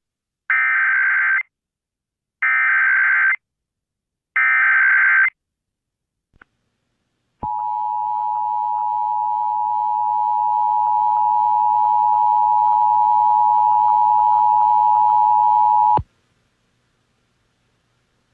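Emergency Alert System tones: three bursts of SAME header data, each about a second long and a second apart, then after a short gap the EAS two-tone attention signal, a steady tone held for about eight and a half seconds that cuts off suddenly.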